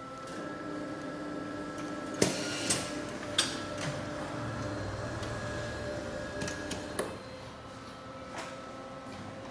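Ricoh Aficio 3600 A0 wide-format copier running with a steady mechanical hum, broken by several sharp clicks from its mechanism about two to three and a half seconds in. The hum drops in level after a last click about seven seconds in.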